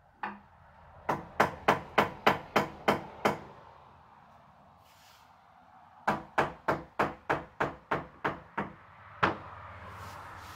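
Hammer blows on the wooden porch bottom rail: two quick runs of about nine even strikes each, about four a second, with a single last blow near the end.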